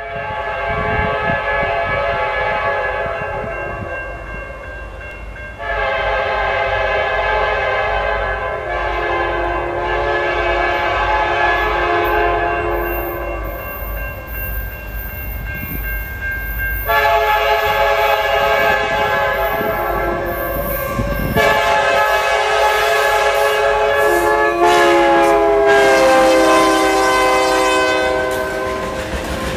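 Air horn of a Canadian National diesel-electric freight locomotive (SD60 CN 5419 leading) sounding the grade-crossing signal: long, long, short, long, with its pitch dropping partway through the last blast. Under it the engines and wheels rumble, and near the end freight cars roll past.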